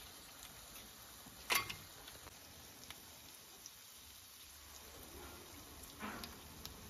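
Faint sizzling of eggs and meat frying in a metal pan over wood embers, with one sharp tap about a second and a half in and a soft brief rustle near the end.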